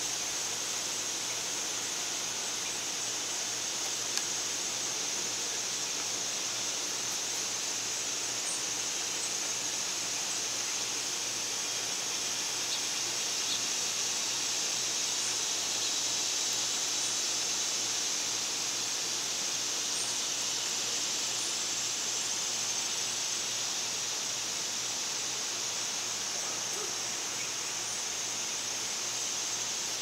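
Steady high-pitched outdoor hiss, with a few faint, short high chirps scattered through it.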